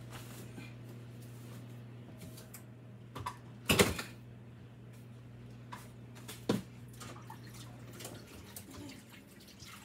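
Pot cooking on an electric stovetop: a faint steady low hum that cuts off about eight seconds in. A sharp knock comes just before four seconds in, and a smaller click at about six and a half seconds.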